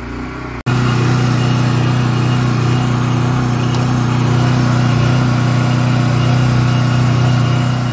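Portable gas generator running smoothly at a steady speed, close by. There is a brief break less than a second in, after which the running comes back louder.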